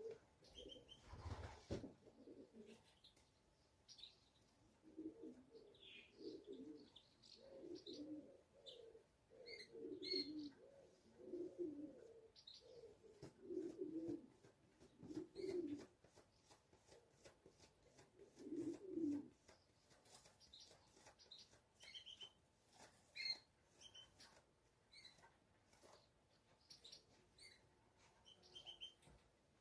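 Domestic pigeons cooing faintly in a run of low, repeated coos that starts about five seconds in and stops a little before the twenty-second mark. Small birds chirp briefly now and then.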